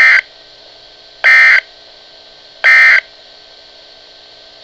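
Three short, identical bursts of EAS digital data tones, a harsh two-tone buzz, spaced about 1.4 s apart over faint radio hiss. This is the Emergency Alert System end-of-message (EOM) code sent by NOAA Weather Radio, closing the required weekly test.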